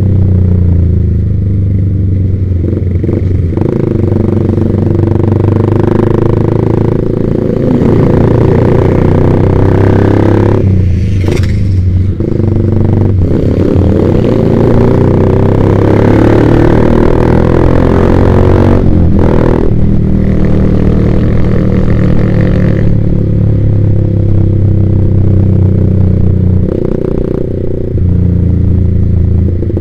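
Yamaha Vixion single-cylinder motorcycle engine running through a Proliner TR1 R aftermarket exhaust while riding. Its pitch climbs and drops as the throttle changes, with brief breaks about 11 and 19 seconds in.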